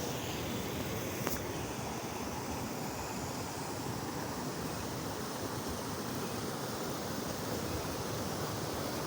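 Steady rush of river water spilling over a small waterfall, an even hiss with no breaks.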